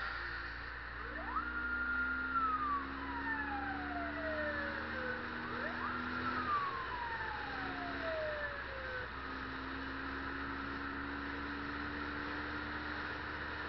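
Police siren wailing through two slow cycles: each rises fast, holds briefly, then falls slowly. Under it are the steady hum of a motorcycle engine and road and wind noise.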